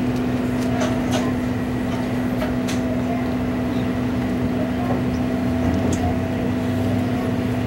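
Steady mechanical drone of a fishing boat's onboard machinery running while docked: a constant hum over a low rumble, with a few faint clicks.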